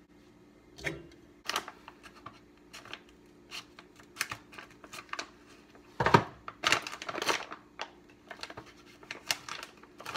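Plastic bag of dried pasta crinkling and crackling as it is handled and pulled open, in quick irregular bursts, loudest about six to seven and a half seconds in.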